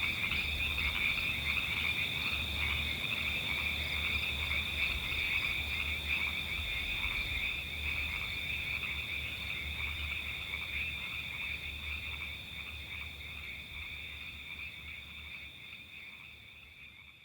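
A dense chorus of frogs calling nonstop, a high, rapid trilling with many voices overlapping, fading out over the last several seconds.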